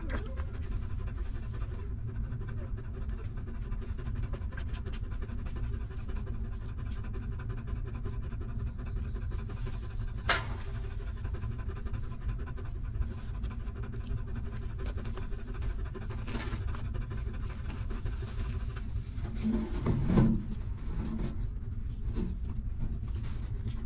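Nursing mother dog panting steadily and continuously, with a sharp click about ten seconds in and a short, louder pitched sound about twenty seconds in.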